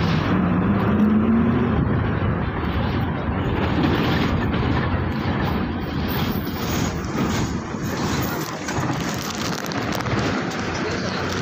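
Bus engine and road noise heard from inside the cabin, near the engine cover beside the driver. The engine note rises in the first two seconds as it picks up revs, then runs on steadily.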